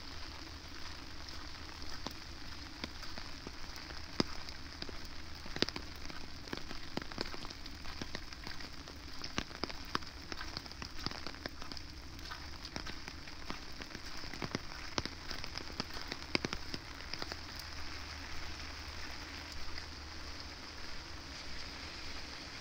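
Steady rain falling, with many irregular sharp taps of drops landing close by.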